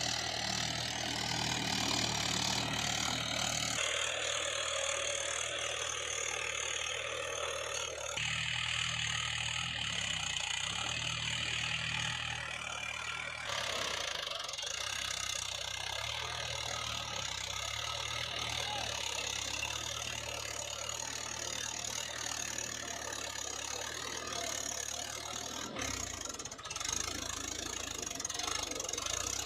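Engine idling steadily with a knocking beat, the sound of a tractor engine. Its character changes abruptly several times, like joined recordings.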